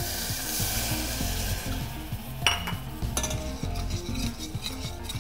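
Port wine poured onto bone marrow browning in a hot copper saucepan, sizzling and bubbling hard as it deglazes the pan. The sizzle dies down after about two seconds, and then a utensil stirs in the pan with a sharp clink and lighter knocks against the metal.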